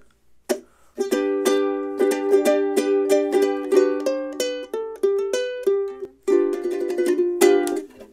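Loog soprano ukulele strummed: a single pluck, then a run of strummed chords from about a second in, changing chords as it goes, with a brief gap about two-thirds through.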